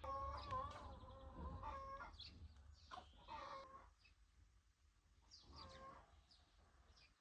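A domestic animal calling repeatedly: one long wavering call for the first two seconds, then shorter calls about a second later and again near six seconds, with small birds chirping faintly.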